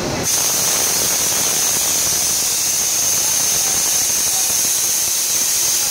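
Mori Seiki CNC mill-turn machine hissing with a steady high-pitched whistle while the milling head moves into its tool change. The hiss comes on suddenly about a quarter second in and then holds steady.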